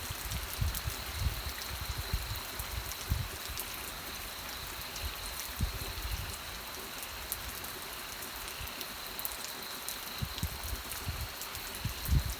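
Steady rain falling, with individual drops ticking close by and a few dull low thuds, the strongest near the end.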